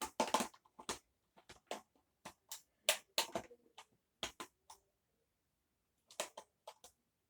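Irregular clicks and knocks of plastic parts being handled and fitted on a cordless upright vacuum cleaner, about a dozen sharp taps with a short pause in the middle.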